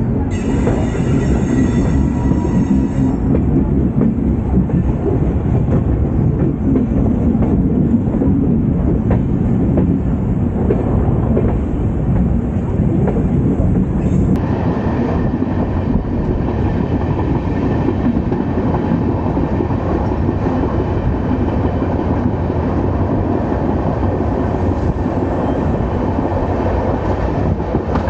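Express train's LHB passenger coaches running along the track, heard from an open door: a steady, loud rumble of wheels on rails with a clickety-clack of the track, and a brief high squeal about a second in as the train rounds a curve.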